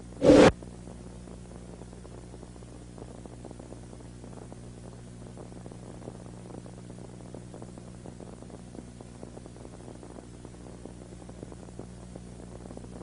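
Steady electrical hum with faint crackling static on a patrol car's dashcam audio track. A brief loud burst cuts in a fraction of a second in, lasts about a third of a second, and then the hum goes on unchanged.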